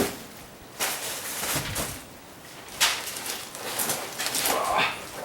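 Rustling and scraping from handling a plastic replacement taillight assembly, in about three short bursts.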